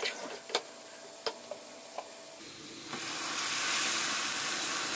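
A wooden spatula gives a few light clicks against a nonstick pot while kaima rice fries in oil and ghee with a faint sizzle. About three seconds in, water is poured into the hot pot: a steady, louder rush and hiss that keeps going.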